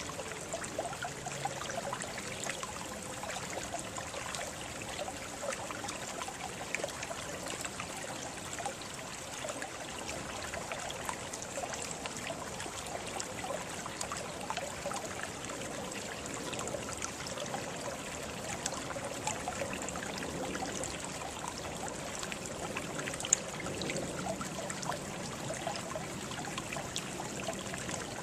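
Water trickling and splashing steadily, a continuous babble of small droplets and gurgles, with one sharp tick near the end.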